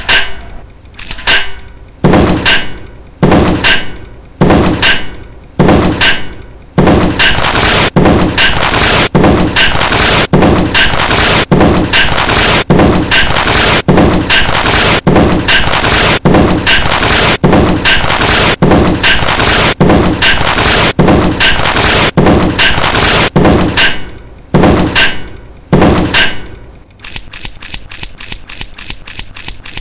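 Loud, heavy slamming impacts, each ringing briefly. They come about one a second at first, then close together for most of the stretch, then spread out again. Near the end they give way to a quieter, fast, even ticking rattle.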